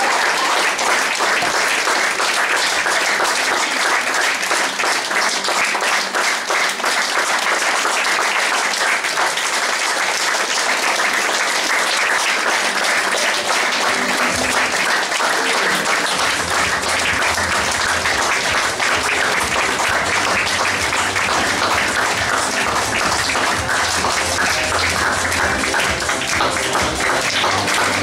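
Audience applauding steadily with dense clapping. About halfway through, music with a low bass line comes in under the applause.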